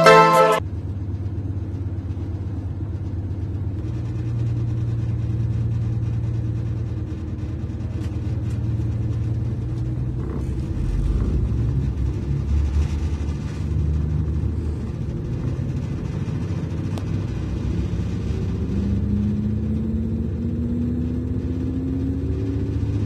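Class 221 Super Voyager diesel-electric train heard from inside the passenger saloon: the underfloor diesel engine runs with a steady low rumble. Over the last few seconds a whine rises slowly in pitch as the train pulls out and gathers speed.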